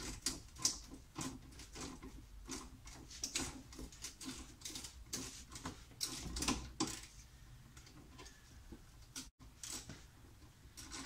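Faint, irregular metal clicks and taps of an open-end wrench working the clamp bolt of a washer fluid tank, a long-stuck bolt now turning a little at a time. The clicks thin out about seven seconds in.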